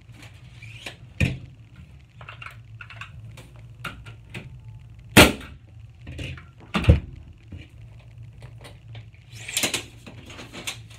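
Nail gun firing nails into a wooden board on the wall: a sharp shot about a second in, then the two loudest shots about a second and a half apart midway, and a cluster of lighter clicks near the end.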